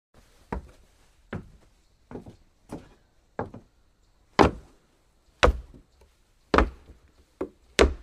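Footsteps walking on a wooden floor: about ten short, separate steps at a slow, slightly uneven pace, growing louder about halfway through.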